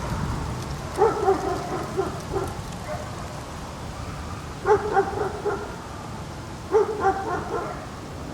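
A dog barking in three bouts, each a quick run of several barks, over a steady low background rumble.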